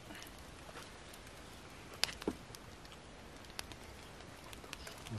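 Wood campfire crackling, with a few sharp pops scattered over a low steady background.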